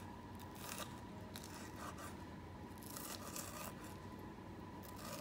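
Chef's knife thinly slicing green onions on a wooden cutting board: faint, unevenly spaced cutting strokes, roughly one every half second to a second.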